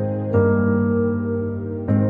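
Background music: slow, soft piano chords, a new chord struck twice, each held and fading.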